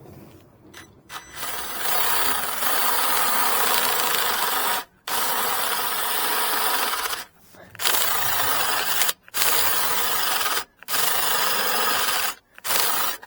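A cordless power tool cutting a recess into a reclaimed wooden post. It runs in about six bursts: the first lasts about three and a half seconds, the rest one to two seconds each, with short stops between them.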